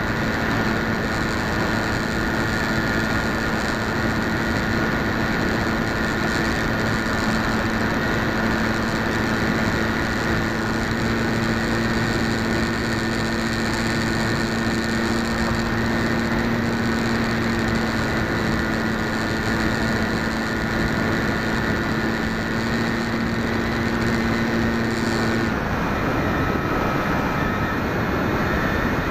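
FPV model aircraft's motor and propeller running steadily, heard from the onboard camera as a constant whine over rushing noise. About 25 seconds in, the low hum stops and the whine drops slightly in pitch.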